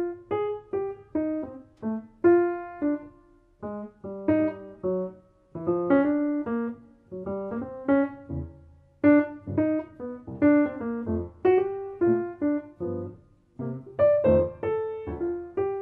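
Piano playing an instrumental jazz/MPB piece: quick phrases of short, separately struck notes and chords, each fading after it is hit.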